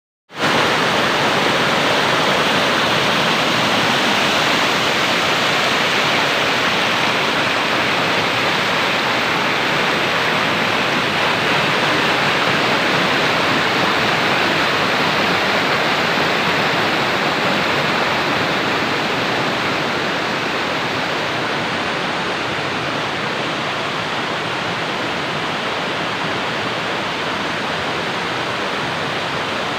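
Waterfall pouring: a steady, dense rush of falling water that becomes slightly quieter about two-thirds of the way through.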